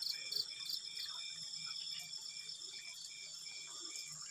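Crickets chirping: a regular high chirp repeating about three times a second over a steady, higher trill of other insects.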